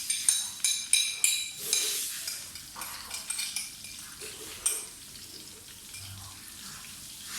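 A metal utensil clinking and scraping against a wok as grated ginger and palm sugar are put in to cook, with several sharp, ringing clinks in the first two seconds, a few more a little later, then quieter scraping.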